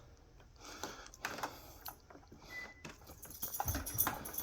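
Scattered light clicks and rustling from a Shark Vertex upright vacuum's power cord being wrapped around its cord hooks, with a dull knock near the end.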